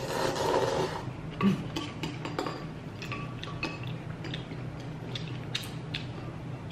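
Kalguksu noodles slurped for about a second, then scattered light clicks of wooden chopsticks against ceramic bowls as the noodles are stirred and picked up.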